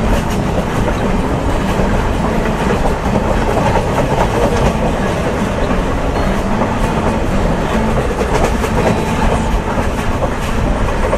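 A Mumbai suburban local train running, heard inside the carriage: a loud, steady rumble and rattle of the wheels on the track and the coach body, with some clatter.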